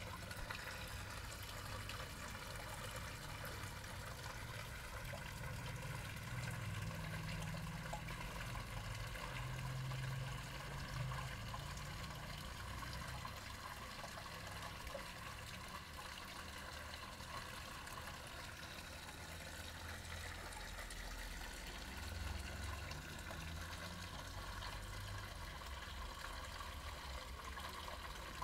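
Steady trickle of running water into a koi pond, with a low rumble coming and going underneath.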